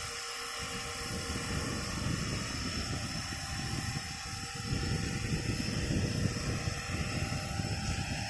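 JCZK 300C 450-size battery-powered RC helicopter running, its motor and rotors giving a steady high whine. About half a second in, a rough, gusty low rumble joins it, typical of rotor downwash on the microphone. Near the end the pitch of one tone rises.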